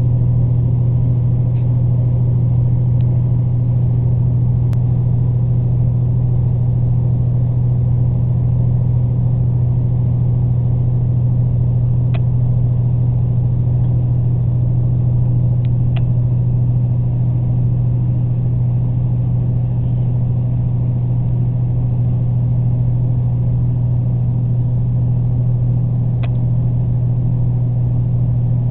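Steady low drone and rumble of a diesel regional train running at speed, heard from inside the passenger cabin, with a few faint ticks here and there.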